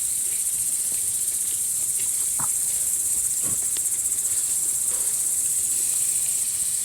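Crickets chirping in a steady, high-pitched chorus, with a couple of faint short knocks.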